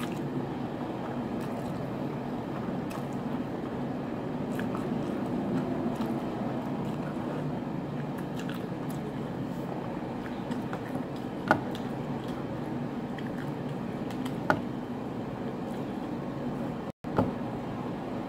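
A person chewing food close to the microphone over a steady background noise, with two sharp clicks in the second half. The sound cuts out for an instant near the end.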